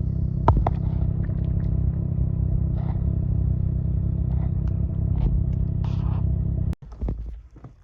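Snowmobile engine running steadily under way, with scattered clicks and rattles. Near the end it cuts off suddenly and gives way to a much quieter, low engine sound.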